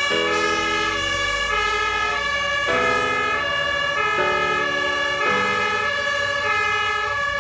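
Fire engines' two-tone sirens (German Martinshorn) sounding, switching back and forth between a high and a low note a little more often than once a second, over a low rumble.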